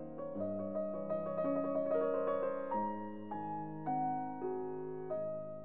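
Background piano music: single struck notes that ring and fade, with a quicker run of notes in the middle.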